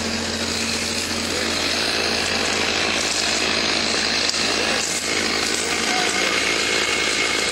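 Chainsaw running over a steady low hum that changes about six seconds in.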